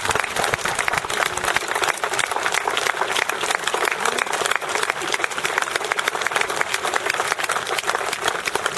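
Crowd applauding: dense, steady clapping with no break.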